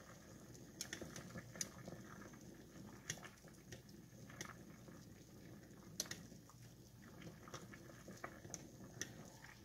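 Faint bubbling of water at a full boil in a small stainless saucepan of rice vermicelli, with scattered soft clicks as chopsticks stir the noodles.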